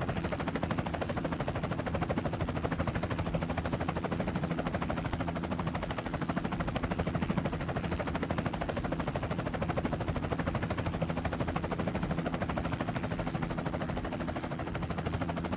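Trophy truck's V8 engine running hard over desert whoops: a loud, steady, rapid crackling exhaust note.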